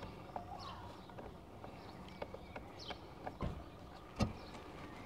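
A small bird chirping a few times over faint outdoor background, with a few sharp clicks of a hand tool working a bolt out of a plywood mount, the loudest about four seconds in.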